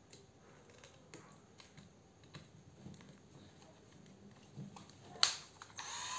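Light scattered clicks and taps of a battery adapter being fitted to a Bosch 12V cordless drill body, then a sharp click about five seconds in. Near the end the drill's motor starts up with a rising whine.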